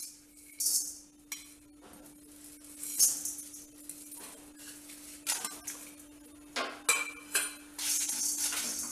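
Dry chana dal, cumin seeds and peppercorns tipped from a steel plate into a stainless-steel kadai, rattling and clinking on the bare metal in several short bursts. Near the end a wooden spatula stirs the dry spices around the pan for dry roasting. A faint steady hum runs underneath.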